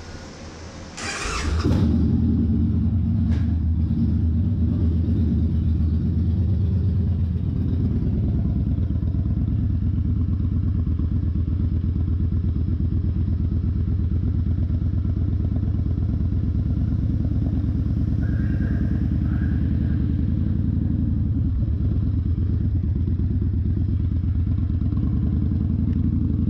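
The V-twin of a 2011 Victory Vegas Zach Ness Edition, through a Bassani Pro Street turnout exhaust, fires up after a short burst about a second in. It then runs steadily as the bike pulls away and rides off, a little louder near the end.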